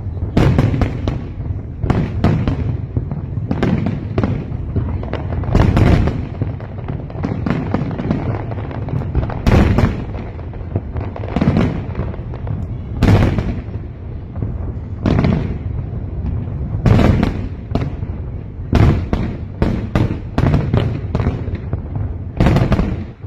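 Aerial fireworks display: shells bursting in irregular succession, sharp bangs about once a second over a continuous low rumble.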